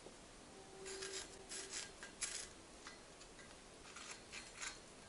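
Faint scratching of a pencil drawing marking lines on a dry birch axe-handle blank, in short quick strokes: a run of strokes in the first couple of seconds, a lull, then a few more near the end.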